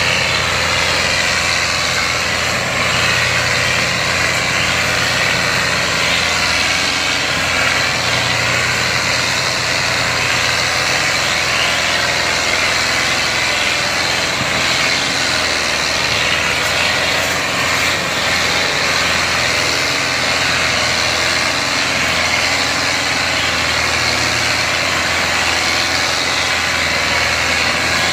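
Diesel engines of two tractors in tandem, a New Holland Dabung 85 four-cylinder and a Ford 4610 three-cylinder, running steadily under heavy load as they pull a fully loaded sugarcane trolley.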